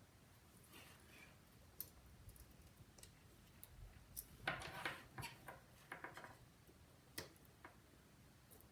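Faint scattered clicks and light taps of small metal repair tools and parts being handled inside an iPhone 5 during reassembly, with a quick cluster of clicks about halfway through.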